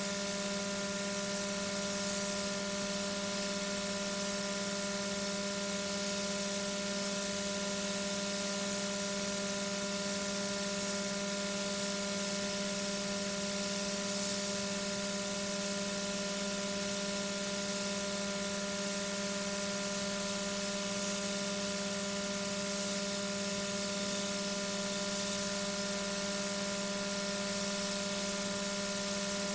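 Steady electrical hum made of several constant tones, over an even hiss, unchanging throughout, with no bird calls or other events.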